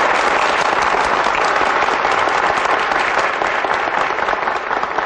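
A large audience applauding, many hands clapping at once in a steady, dense patter.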